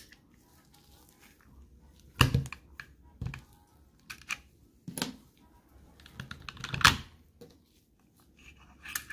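Metal parts of a Luger P08 pistol being handled during takedown: about eight sharp clicks and knocks at uneven spacing as the takedown lever is turned and the side plate is lifted off and set down. The loudest knock comes about two-thirds of the way through.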